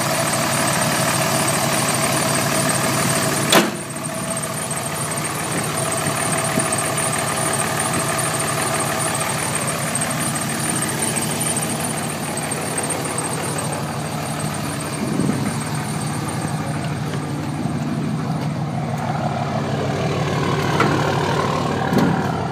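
Cummins 5.9-litre inline-six turbo diesel in a 2004 Dodge Ram 3500 idling steadily, with a single sharp click about three and a half seconds in.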